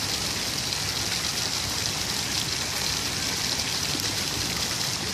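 Fountain jets splashing steadily into a shallow tiled pool.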